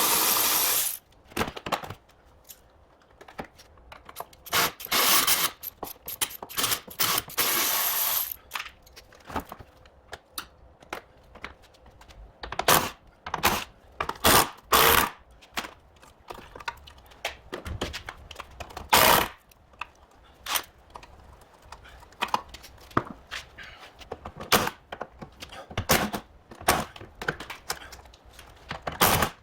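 A power tool running in short bursts of about a second, several times in the first eight seconds, then scattered clicks and knocks of tools and fixings while a car's front bumper is taken off.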